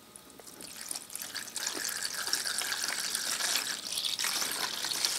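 Evapo-Rust rust remover poured in a steady stream into a plastic tub, splashing and bubbling over old steel calipers and dividers. It starts faint and grows louder over the first second or two as the stream builds, then runs steadily.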